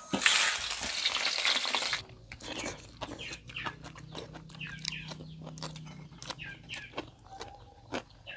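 Hot oil sizzling loudly in a wok for about two seconds, cut off abruptly. Then crunching and chewing of food eaten by hand, with chickens clucking repeatedly in the background.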